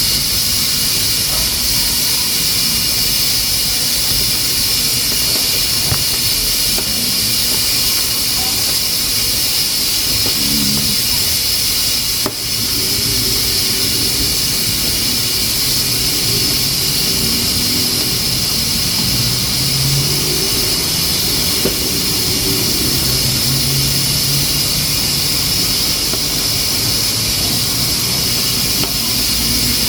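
Pressure cooker hissing steadily, steam escaping through its valve as it cooks under pressure on a wood-burning stove, with one short click about twelve seconds in.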